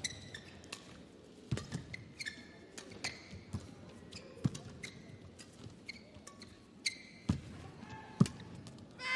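Badminton rally: rackets strike the shuttlecock with sharp pops every second or two, the loudest near the end, while players' shoes squeak briefly on the court mat between shots.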